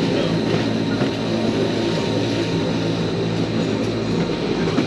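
Rigi rack railway train climbing steadily, with the steady hum and rumble of its electric drive and running gear and a faint high whine over it.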